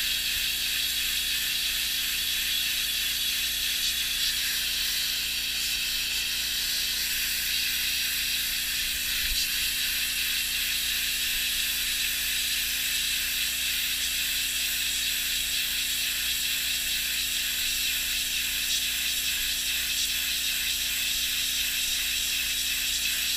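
Pressure washer jet spraying steadily against a boat's surface, blasting off old wrap adhesive, with a steady low hum underneath.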